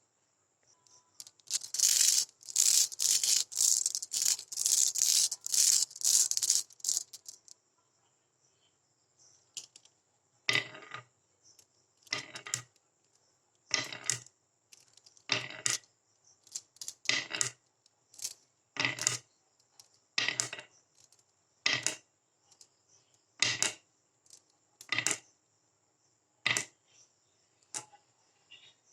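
Glass marbles clattering on a handmade marble run track: several seconds of rapid dense clicking, then single sharp clacks about every second and a half.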